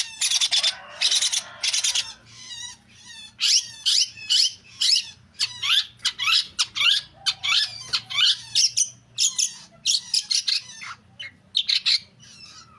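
Long-tailed shrike (cendet) singing a fast, varied chattering song of short, sharp high notes and quick whistled sweeps, with harsh rasping calls in the first two seconds.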